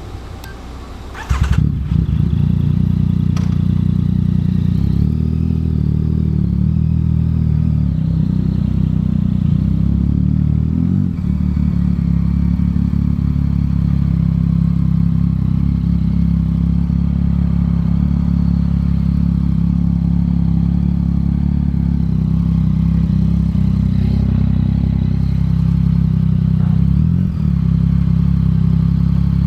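Yamaha MT-09's inline three-cylinder engine through a Yoshimura R11 exhaust, coming in suddenly about a second in and then running steadily at an even pitch.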